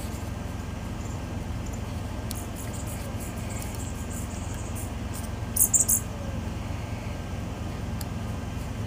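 Small metallic clicks and ticks of a screwdriver working a screw on a galvanised blower housing, with a short cluster of sharp clicks about halfway through. A steady low hum sits underneath.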